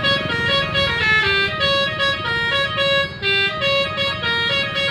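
Bus telolet horns playing a quick tune of short, stepping notes, several horn tones overlapping, with a low rumble underneath.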